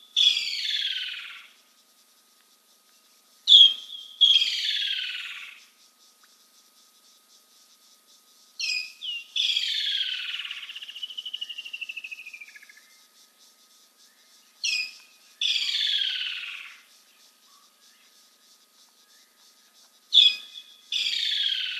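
Animal calls repeated every four to six seconds, each a short sharp high note followed by a squealing whistle that slides steadily downward for about a second. The call near the middle is longer and wavers as it falls.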